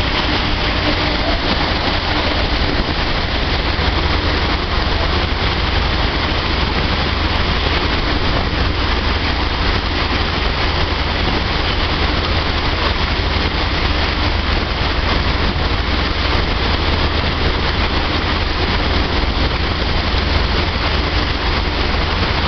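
A dryer running steadily: an even, continuous rush of air noise over a deep low hum, with no change in speed.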